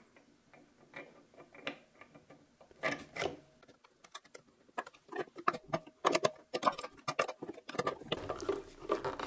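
Light metal clicks and clinks from a small steel pulley, washers and nut being fitted onto a servo motor's keyed shaft, with the nut being threaded on by hand. The clicks come irregularly and grow busier after the halfway point, with some rubbing and scraping near the end.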